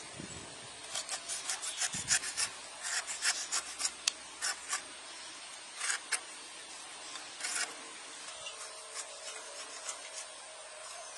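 A small knife cutting through pineapple rind in a quick run of short crisp scraping strokes, dense for the first half and sparser later as the eyes are cut out of the fruit.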